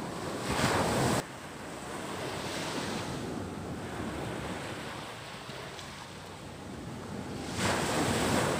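Outdoor wind noise: a steady rushing with two louder surges, the first cutting off abruptly about a second in and the second near the end.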